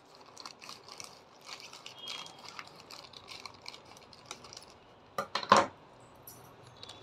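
Scissors snipping and crackling through a plastic courier mailer in short, irregular cuts, then two louder knocks a little after five seconds in as the scissors are set down on the wooden table.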